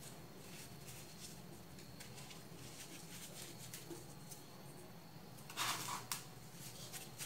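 Fingers crumbling packed baking soda and raking through loose baking soda powder, making faint soft crunching and crackling, with one louder crunch about five and a half seconds in.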